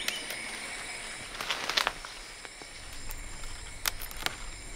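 Wild vegetable fern (pak gut) fronds rustling, and a few sharp snaps as the young shoots are broken off by hand: a cluster a little under two seconds in and two more near the end. A steady high-pitched insect drone runs underneath.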